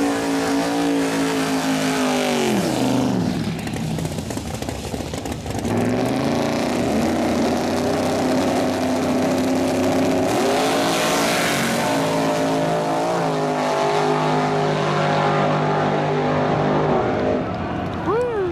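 Drag-race car engines: one revs hard through a burnout and its revs fall away a couple of seconds in, then engines idle and rev in short steps at the start line, with a quick rise and fall of revs near the end.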